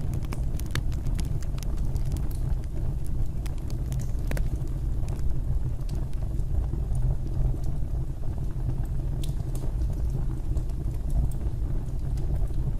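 Fireplace fire burning with a steady low roar and scattered sharp crackles and pops, most frequent in the first few seconds.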